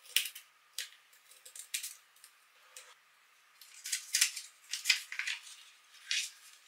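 Small scissors snipping through folded paper a few times, then crisp crinkling and rustling of the paper as it is unfolded.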